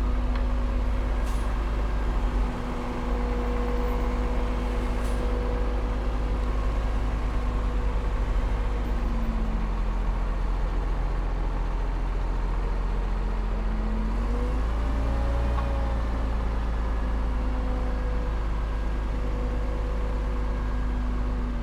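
Heavy diesel engine of earthmoving machinery running steadily with a deep rumble; its pitch drops about nine seconds in and rises again around fourteen seconds as the load or throttle changes.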